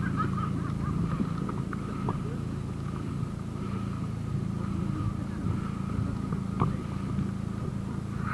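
A steady low engine hum, with a faint high tone above it and a few small clicks.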